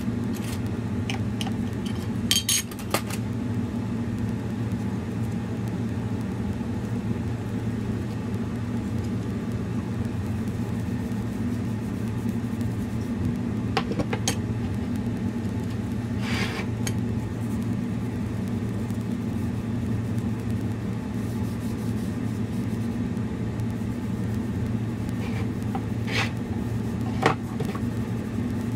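A steady low mechanical hum from an unseen machine. A few short clicks and rustles come through it as a metal tin of finishing wax and a cloth are handled.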